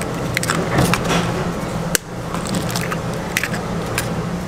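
Eggshells cracking and small clicks as raw eggs are broken by hand into batter-filled egg-bread moulds, over a steady low hum.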